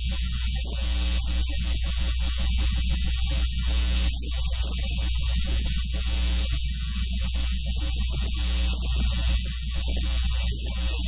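Loud, steady electrical mains hum with a constant hiss over it, the middle of the sound dropping out in choppy patches.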